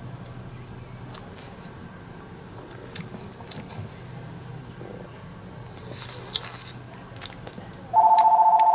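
A phone starts ringing about eight seconds in, a loud, steady two-tone ring. Before it there are only faint clicks and small rustles over a low hum.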